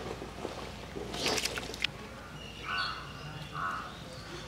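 Hand sloshing and washing raw rice in water in a large metal pot, with a splash a little over a second in. A bird calls twice near the end.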